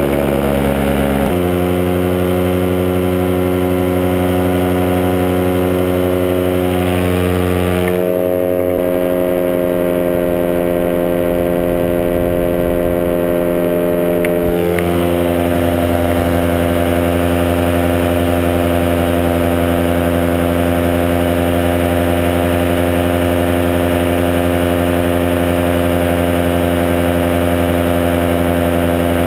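Paramotor engine and propeller running steadily in flight. The pitch shifts slightly about a second in, rises a little around eight seconds and drops back around fifteen seconds as the throttle is adjusted.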